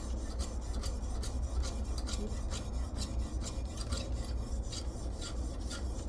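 400-grit CBN diamond-type stone of a guided knife sharpener scraping back and forth along a steel knife edge in quick, even strokes, about three to four a second. The raised wire edge (burr) is being rolled back and forth by the stone.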